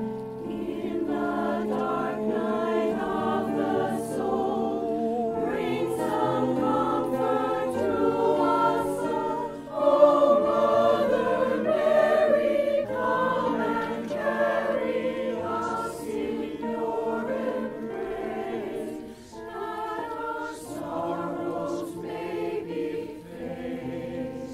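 Mixed choir of men's and women's voices singing a requiem in phrases, swelling loudest about ten seconds in.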